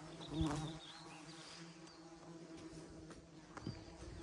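Honey bees buzzing around a freshly cut wild comb, a steady low hum: agitated bees that are stinging a lot. A brief thump about half a second in.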